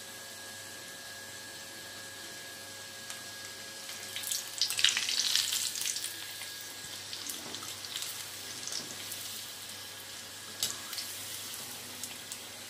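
Batter-coated chicken pieces deep-frying in hot oil in an iron kadai: a steady sizzle that swells loudly about four seconds in as a wire spider strainer stirs the pieces, then settles into scattered crackles and pops.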